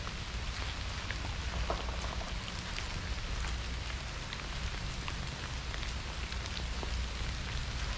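Freezing rain falling, a steady patter with many scattered small ticks of drops, over a low steady rumble.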